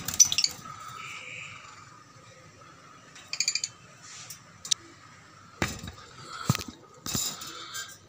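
Caged parrots giving short shrill calls, one burst just after the start and another about three and a half seconds in, followed by a few sharp knocks and clinks.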